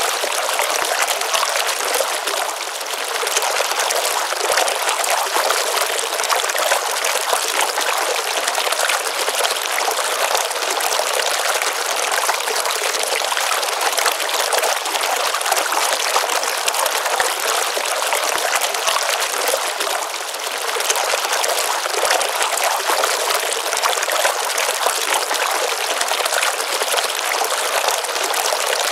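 Water of a small pond stream running and splashing steadily, a continuous bright rush with almost no low rumble, easing off slightly for a moment twice.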